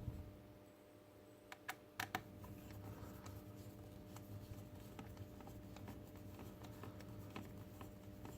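Small plastic robot-kit parts being handled, with a quick cluster of sharp clicks about two seconds in and scattered light ticks after, over a faint steady hum.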